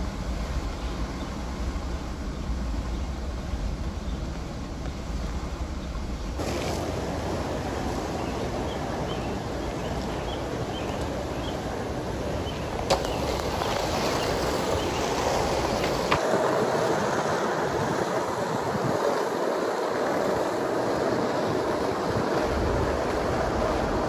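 Skateboard wheels rolling on asphalt street, a steady rumble mixed with wind on the microphone; the noise changes abruptly a couple of times.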